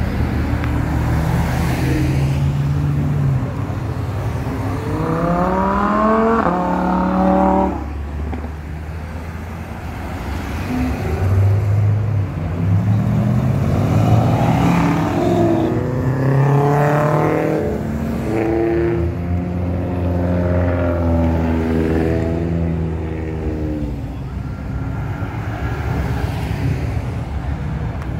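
Cars accelerating past one after another, their engines revving up and dropping back at each gear shift, over the hiss of tyres and passing traffic.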